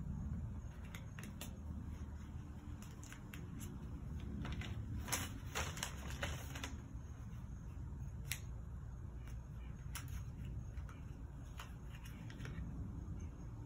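A small cardboard crochet-hook box being handled and opened among tissue paper: scattered light clicks, taps and paper rustles, thickest a few seconds in.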